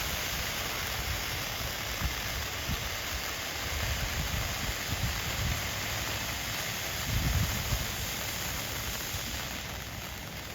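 A consumer firework going off: a steady, rain-like hissing and sizzling spray, with a few dull low thumps, the strongest about seven seconds in.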